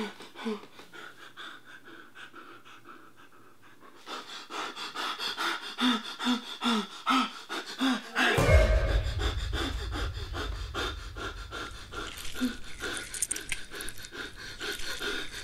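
A person panting heavily in a steady rhythm, the breaths growing louder about four seconds in. Just after eight seconds a sudden deep, low rumble hits and carries on underneath the panting.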